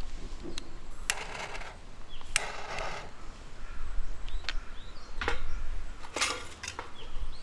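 A fire starter struck twice over a fire basket, two rasping scrapes about a second apart, followed by a few sharp clicks as a small flame is lit in the kindling.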